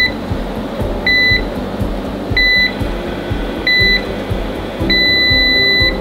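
Vaydeer timed lock box beeping as its lock engages: short high beeps about every second and a quarter, then a long steady beep about five seconds in. Background music with a steady beat runs underneath.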